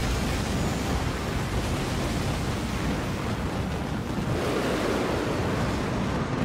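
Dense barrage of fireworks exploding, the bangs coming so fast they run together into one continuous rumbling, crackling noise.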